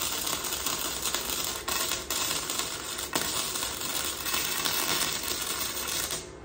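Electric arc welder crackling steadily as a bead is laid on the raw steel frame tubing of a pit bike, with two brief breaks in the arc about a second and a half in. The arc cuts off suddenly near the end.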